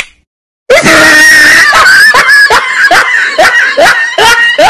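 A very loud voice cries out in a rapid run of repeated cries, about four a second, starting abruptly under a second in after a brief silence.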